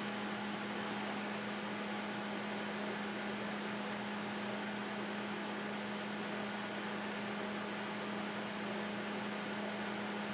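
A TRS-80 Model 16B computer running: a steady low hum over an even hiss of cooling-fan noise.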